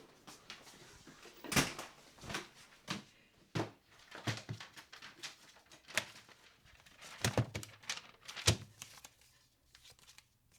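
A few scattered soft knocks and thumps in a quiet room.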